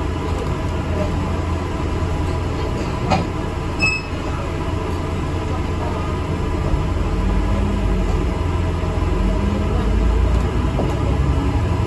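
Steady low rumble of an ADL Enviro400 MMC double-decker bus on the move, heard from inside, with a couple of short knocks or rattles about three and four seconds in.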